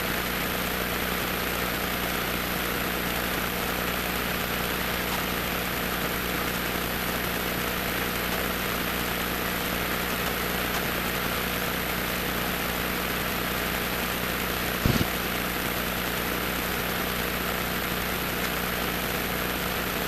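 Cessna 150's four-cylinder Continental O-200 engine and propeller running at a steady speed, heard from inside the cockpit as an even drone over a broad hiss. There is one brief click about 15 seconds in.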